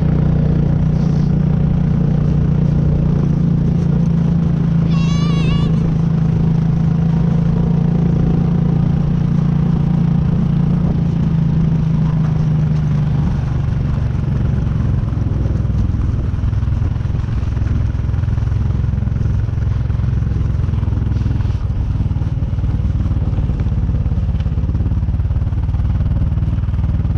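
ATV engine running steadily while towing, its pitch dropping to a lower, rougher drone about halfway through. A brief high, wavering voice cries out about five seconds in.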